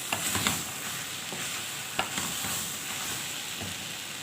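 Rice sizzling as it toasts in ghee and oil in a pan, with a few sharp clicks of a spoon against the pan as it is stirred, one near the start and one about two seconds in.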